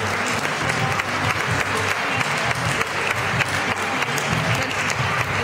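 Audience applauding steadily, a dense patter of many hands clapping, with music playing underneath.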